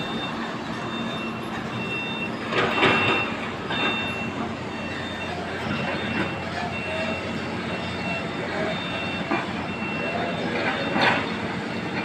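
Reversing alarm of a construction vehicle beeping about once a second over the steady running of its engine. Two louder noisy bursts come about two and a half seconds in and near the end.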